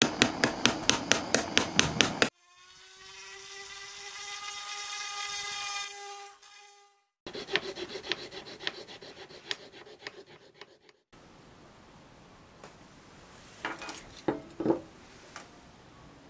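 A small hammer taps rapidly on the rim of a stainless steel Sierra cup, about ten quick metallic strikes. Then comes a steady high-pitched metallic whine that swells and holds for a few seconds before cutting off. After that a hand file rasps back and forth on a small wooden piece held in a vise, several strokes a second, and near the end there are a few light knocks.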